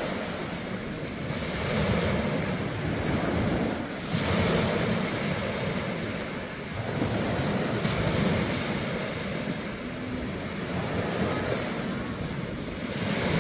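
Small ocean waves washing onto the beach, the surf rising and falling every few seconds, with wind rumbling on the microphone.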